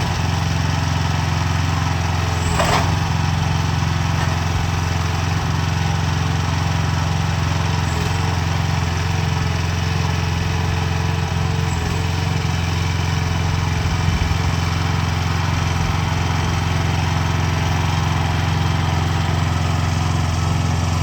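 Single-cylinder Rato 420cc gas engine of a mini hydraulic excavator running steadily at a constant speed, with a brief knock about two and a half seconds in.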